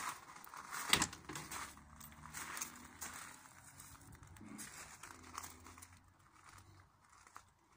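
Footsteps crunching on gravel with rustling handling noise, and a sharp knock about a second in.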